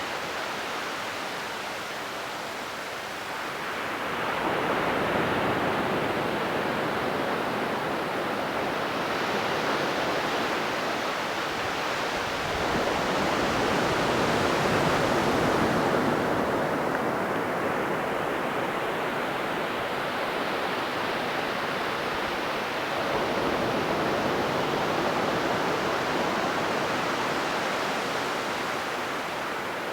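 Ocean waves breaking and washing up a beach, the surf swelling and ebbing as three waves come in, about 4, 12 and 23 seconds in.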